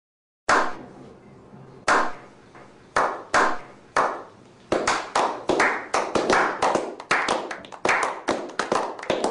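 A slow clap. Single hand claps come about a second apart at first, then more hands join and the clapping quickens into dense applause in the second half.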